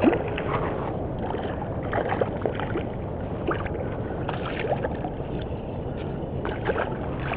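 A hooked redfish splashing at the water's surface beside a kayak, in short bursts several times, over steady wind noise.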